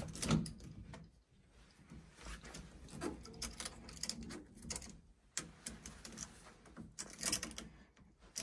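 A power flush hose connector being handled and pushed onto a central heating pump valve: scattered clicks and knocks of plastic and metal fittings with rustling, the loudest just after the start and about seven seconds in.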